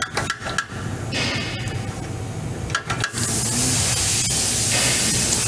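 A few knocks and clatters, then about three seconds in a steady hiss of spray starts and keeps going.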